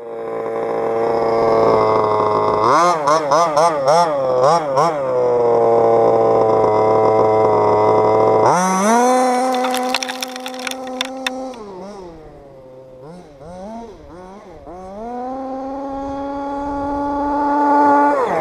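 30.5cc Trevor Simpson six-port two-stroke engine of an HPI Baja 5B RC buggy at high revs, blipped in quick bursts a few seconds in, then held at full throttle as the buggy tears by. Flung gravel makes a spate of sharp clicks about nine to eleven seconds in; the engine note then drops and blips again before climbing to a long steady full-throttle run near the end.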